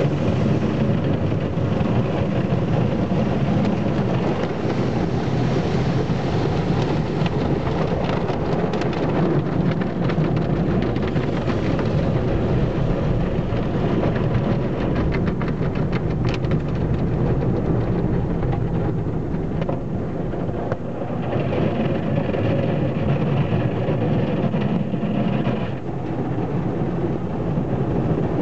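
Automatic car wash heard from inside the car: water jets and cloth brushes working over the windshield and body make a steady heavy rush over a low rumble, with scattered ticks and slaps, and a brighter hissing spray for a few seconds about three-quarters through.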